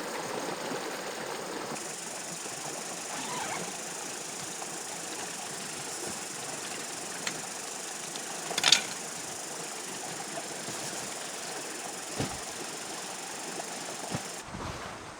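Steady rush of flowing stream water, with a few sharp clicks or knocks over it; the loudest comes about eight and a half seconds in.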